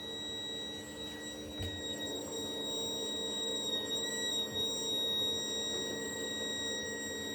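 Water pipes in a block of flats giving a steady, high, siren-like whistle over a lower hum, wavering slightly about four seconds in. It sounds whenever someone in the building runs a tap, the sign of something faulty in someone's plumbing.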